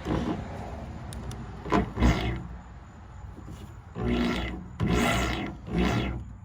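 Stripmeister electric wire-stripping machine grinding and rasping in repeated bursts, with a low motor hum under each one. There are two short bursts near the start, then three longer ones about a second apart.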